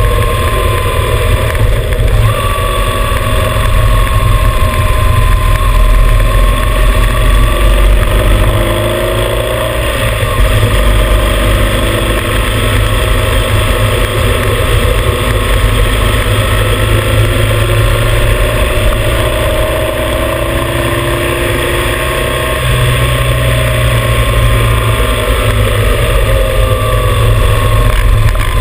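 Motorcycle riding at road speed: its engine runs under a heavy rush of wind on the microphone, and the engine note slowly rises and falls with speed through the curves.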